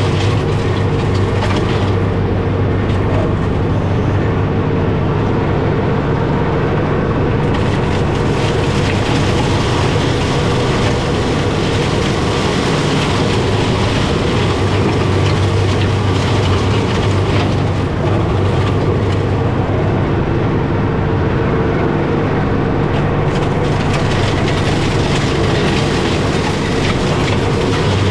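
John Deere 4066M compact tractor's diesel engine running steadily under load, driving a Fieldmaster GM180BB mulcher through gorse, with a constant low hum and a broad mechanical hiss. The hiss thins out twice for a few seconds, about two seconds in and again near twenty seconds.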